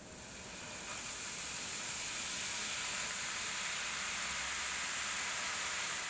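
Baking soda fizzing and foaming in liquid, a steady hiss that builds over the first second and then holds.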